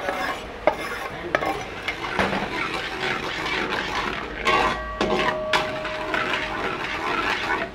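Steel spatula scraping and clinking against a steel pan as thick gravy is stirred in, with a few sharp clinks in the first second and a half, then continuous scraping.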